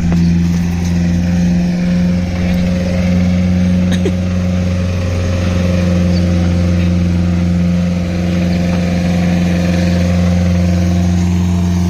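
Rebuilt Mitsubishi 4D56 2.5-litre four-cylinder diesel engine running steadily after its overhaul, with an even, unchanging note.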